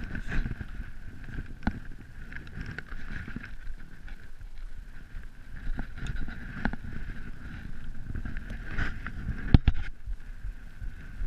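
Low rumble of wind on a helmet-mounted camera's microphone over a steady high hum, with several sharp knocks as the mountain bike is handled, two close together near the end.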